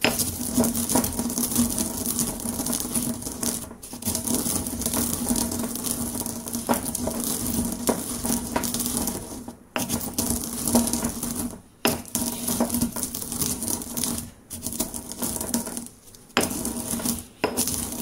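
Stone pestle crushing and grinding coffee beans in a stone mortar: a continuous gritty crunching and scraping, broken by a few brief pauses between strokes.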